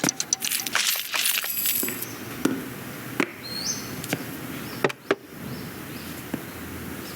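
Animated-film foley of toys moving: scattered small clicks, taps and knocks, with a brief thin high tone that steps up in pitch about three and a half seconds in.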